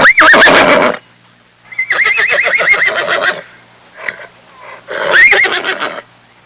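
A horse whinnying three times, each call a loud, quavering neigh.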